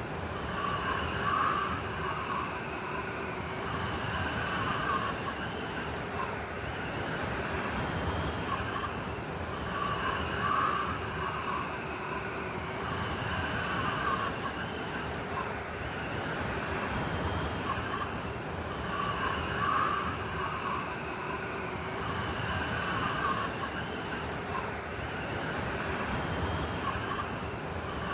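Blizzard wind blowing steadily, with whistling gusts in a pattern that repeats about every nine seconds.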